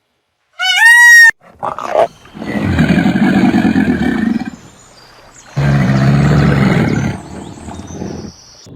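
A large animal roaring twice, each roar about two seconds long and rough. Just before the roars there is a short, high, arching call.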